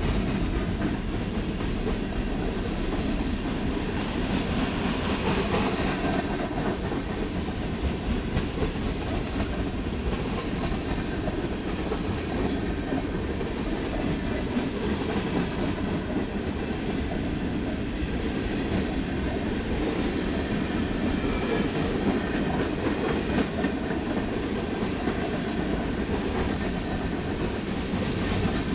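Ferromex freight train rolling past, a steady, continuous noise of wheels on rail.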